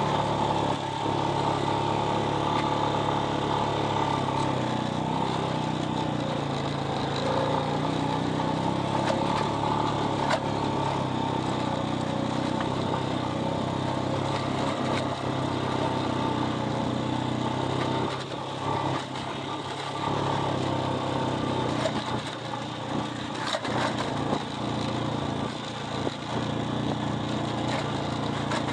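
A vehicle's engine running steadily while driving, its loudness dipping briefly a few times in the second half.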